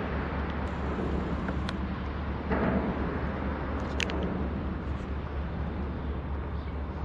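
Steady low engine rumble, with a brief louder noisy swell about two and a half seconds in and a sharp click about four seconds in.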